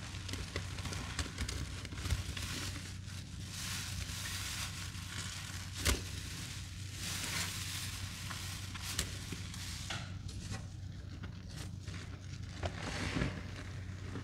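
Sponges loaded with thick cleaning paste and Comet powder being squeezed and squished by gloved hands: wet crackling and crunching that swells in several bursts, with a sharp crack about six seconds in. A steady low hum lies underneath.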